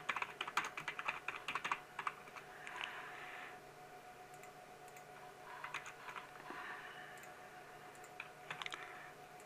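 Computer keyboard typing: a quick run of keystrokes in the first two seconds, then a few scattered key clicks near the end, over a faint steady hum.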